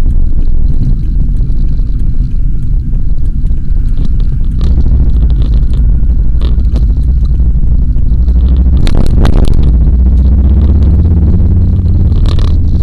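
Steady low rumble of a car driving, road and engine noise heard from inside the cabin by a dashcam, with a short clatter of knocks about nine seconds in.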